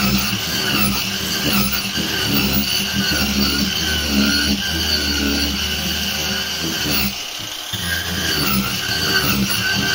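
Angle grinder with a disc grinding down the side of a linden-wood bowl: a steady motor whine, easing briefly about seven seconds in.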